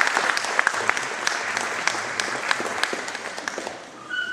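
An audience applauding with many hands, the clapping thinning out and dying away near the end.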